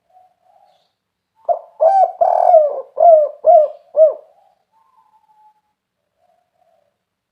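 Spotted dove (tekukur) cooing its 'kuk 3' call: a quick run of about six short, arched coos from about one and a half to four seconds in, with faint softer coos before and after.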